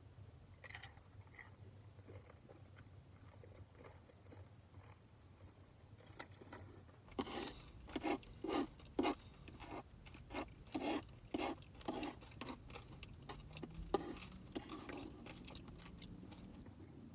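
Close-up chewing of crunchy tortilla chips. It is soft at first, then from about seven seconds in there is a run of loud crisp crunches about twice a second, easing to softer chewing near the end.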